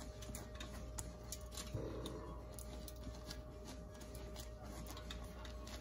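Faint scattered light clicks and a short soft rustle about two seconds in, from butter being spread over a loaf of pan de muerto.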